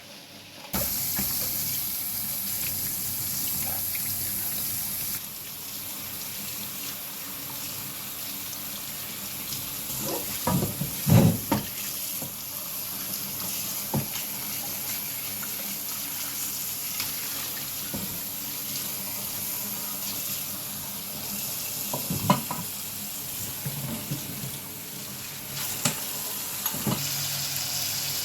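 Tap water running into a sink, turned on suddenly about a second in and flowing steadily, with a few clatters of kitchenware around the middle.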